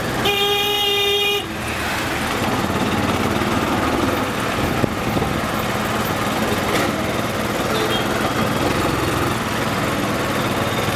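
A vehicle horn sounds once, a loud steady blare of about a second, near the start. After it the auto-rickshaw's small engine runs steadily under general street-traffic noise.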